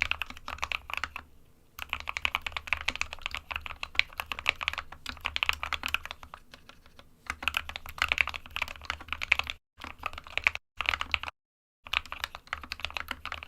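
Computer keyboard typing: quick runs of key clicks, broken by short pauses about a second in and near the middle, and chopped by abrupt silent gaps near the end.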